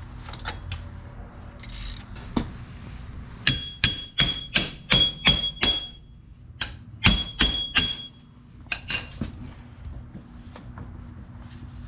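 Hammer blows on steel at a Jeep Wrangler JK's front wheel hub during wheel bearing removal, each with a ringing metallic clang. About seven quick blows, a short pause, then about four more and a last couple.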